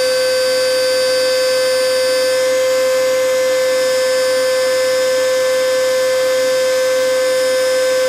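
Vacuum cleaner running steadily: an unchanging motor whine over the hiss of rushing air.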